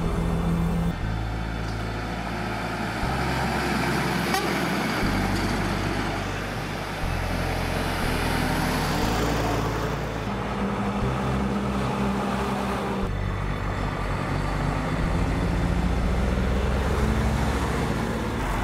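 Road traffic: trucks and cars driving past, with background music whose bass notes change about every two seconds.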